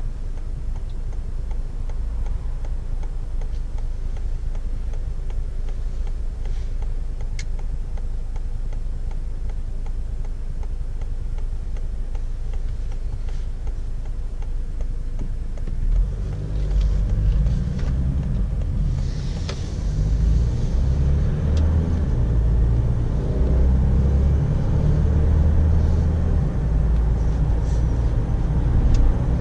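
Ford S-MAX AWD heard from inside the cabin: the engine runs low and steady, then a little past halfway it grows much louder as the car pulls away and accelerates, with road noise building.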